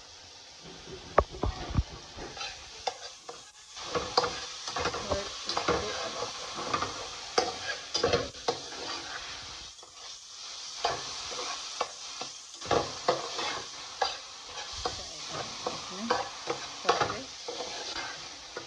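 Slotted metal spatula scraping and knocking against a metal pan in repeated strokes as diced chicken, onion and tomato are stirred, with a steady sizzle of the food frying underneath.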